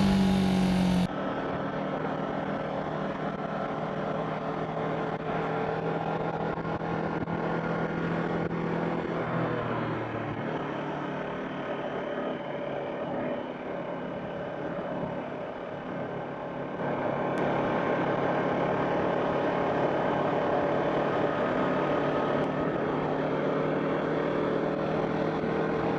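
Kawasaki Ninja 400R's parallel-twin engine running on the road at a steady cruise, with a noisy rush behind it. The engine note shifts about nine seconds in and grows louder about seventeen seconds in.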